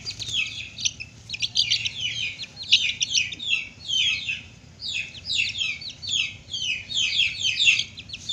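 Parrot-beak long-tail chickens' chicks peeping: a rapid string of high calls, each falling in pitch, several a second with only short gaps.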